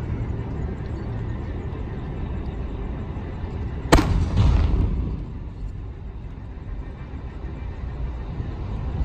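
A firework shell bursting with one sharp bang about four seconds in, its boom rumbling and crackling on for about a second, over a steady low rumble of background noise.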